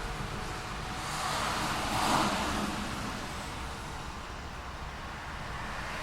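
Road traffic: a car passes, rising to its loudest about two seconds in and then fading, over a steady low rumble of traffic.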